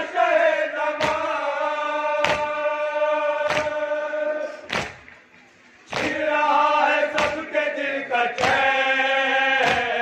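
Shia noha: a group of men's voices chanting a mourning lament in unison on long held notes, with sharp matam (chest-beating) strikes about every 1.2 seconds. The chant breaks off briefly about five seconds in, then resumes.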